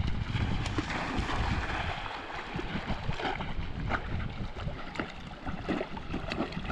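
Small lake waves lapping and sloshing right against a camera held at the water's surface, with many short splashy ticks, and wind rumbling on the microphone.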